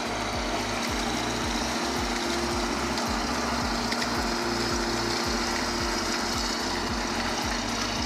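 Background music with a steady beat and a low bass line, over the steady running of a large articulated wheeled tractor's engine.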